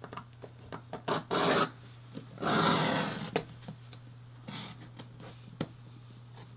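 Leather edge beveler scraping along the edge of a leather strap, with two longer, louder strokes about one and two and a half seconds in and lighter scrapes and small taps between them, over a steady low hum.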